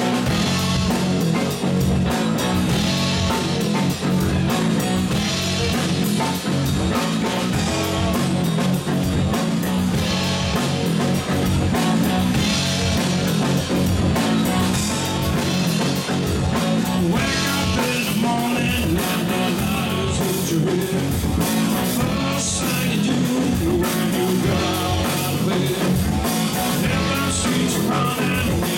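Live rock band playing: an electric guitar, an electric bass and a drum kit, with a steady beat throughout.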